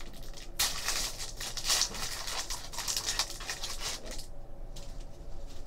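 Foil wrapper of a hockey trading-card pack crinkling as it is torn open and pulled off, starting about half a second in and stopping about four seconds in; a few faint clicks of cards being handled follow.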